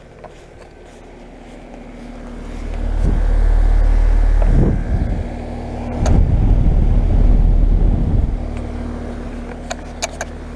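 2018 3.5-ton Carrier Comfort heat pump outdoor unit running in cooling mode: its LG scroll compressor and condenser fan give a steady hum, with a heavy low rumble that swells about two seconds in and comes and goes. A few short clicks near the middle and the end.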